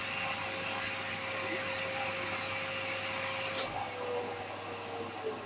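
Household vacuum cleaner running with a steady motor whine, then switched off with a click about three and a half seconds in, its motor winding down in a falling whine.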